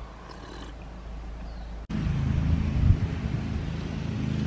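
Wind buffeting the microphone: an uneven low rumble that starts abruptly about two seconds in, after a quieter stretch of low steady hum.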